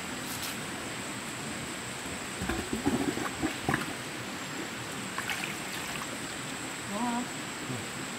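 Water running and trickling steadily, with a few short knocks and splashes about two and a half to four seconds in.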